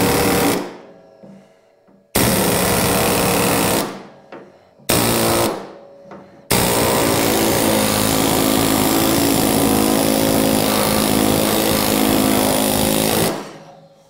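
Steck Skin Zipper air hammer hammering the flange of a new steel door skin, folding it over to 45 degrees as the first stage of hemming it onto the door shell. It runs in bursts: one that stops about half a second in, another of about two seconds, a brief one near five seconds, then a steady run of about seven seconds that stops near the end.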